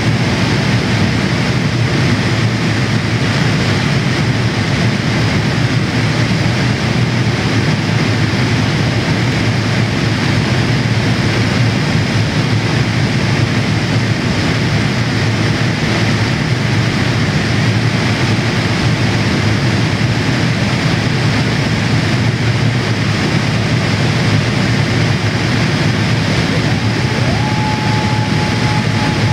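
Steady rushing cabin noise inside a Boeing 787-8 in flight, heard at a window seat over the wing: the engines and the airflow over the fuselage. Near the end a faint whine rises in pitch and then holds steady.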